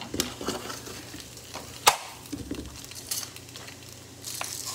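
Potato wedges being stirred in a non-stick frying pan: a utensil scraping and clicking against the pan, with one sharp clink about two seconds in, over a faint sizzle. Near the end a salt grinder starts turning with a gritty hiss.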